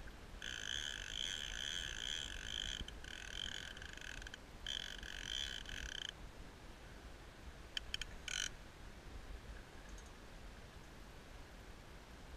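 Fly reel's click ratchet buzzing steadily as a hooked salmon pulls line off the spool, in three runs of one to two seconds, then two short bursts.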